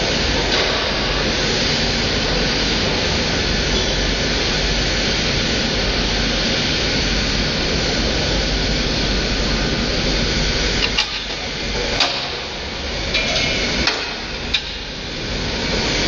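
Machinery running with a loud, steady rushing noise. Near the end it eases off for a few seconds, and several sharp knocks stand out.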